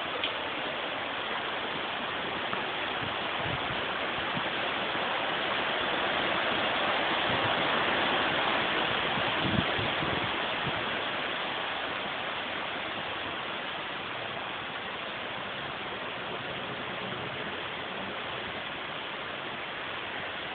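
Heavy rain pouring down onto a wet brick street, a dense steady hiss that swells louder for a few seconds around the middle, with a single brief thump a little before halfway.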